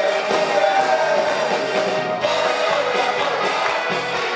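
Live band music with several men singing together into microphones over a steady, regular beat.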